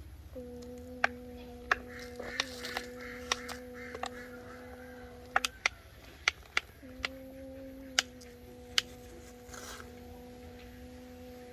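A small motor hums steadily at one pitch, drops out for about a second and a half in the middle, then starts again. Sharp clicks and ticks are scattered over the hum.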